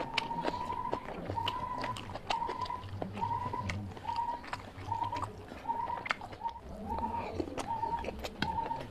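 A bird calling in the background, one short clear note repeated about every three quarters of a second. Under it are scattered wet clicks from a hand mixing rice and curry, and eating sounds.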